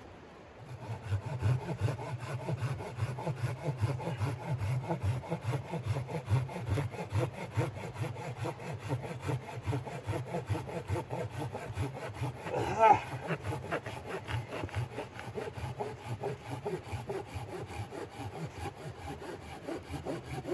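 Red-handled folding pruning saw with a curved blade cutting through a dry, dead log in quick, steady back-and-forth strokes, starting about a second in. One short, high squeal stands out about midway.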